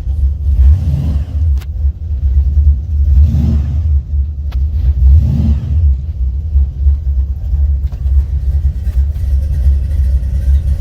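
Buick 455 Stage-1 V8 with an aftermarket TA290-08H camshaft running with a deep, steady low rumble. The rumble swells briefly three times in the first half.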